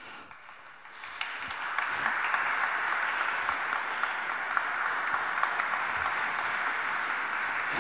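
Audience applauding: the clapping starts about a second in, swells over the next second or so, then carries on steadily.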